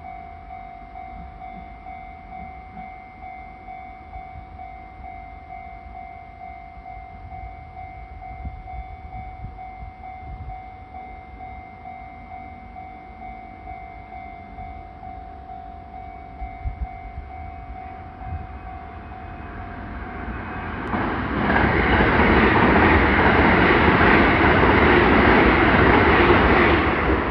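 Japanese level-crossing alarm ringing steadily while the barriers are down. About 20 seconds in, a train rushes through the crossing, and its loud wheel and running noise drowns out the alarm.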